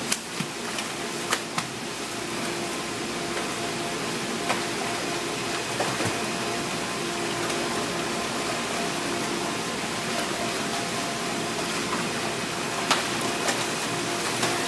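Steady rush of water in a sea-turtle tank under a faint steady hum, with a few short sharp splashes as loggerhead sea turtles thrash at the surface while feeding, two of them close together near the end.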